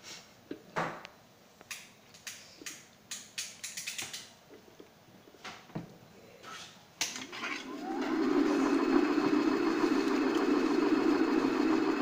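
Scattered clicks and taps, then about seven seconds in a single-phase National ceiling fan motor, wired through its capacitor, starts and spins up with a short rising whine. It settles into a steady, loud hum as it runs freely on the bench without blades, showing that the capacitor connection works.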